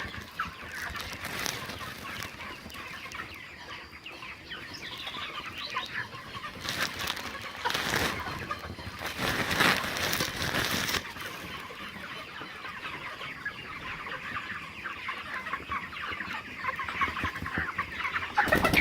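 A pen full of broiler chickens clucking and chirping continuously, many birds calling at once. A louder rustling, scuffling noise rises over the calls for a few seconds in the middle.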